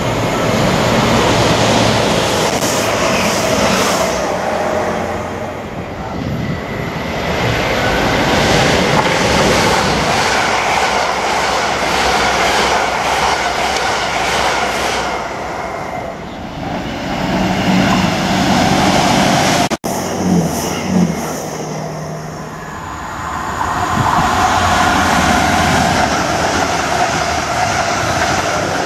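A Class 180 diesel multiple unit passing through the platform, its engines and wheels on the rails swelling and easing as the carriages go by. About two-thirds of the way through the sound cuts abruptly to a Class 360 electric multiple unit passing.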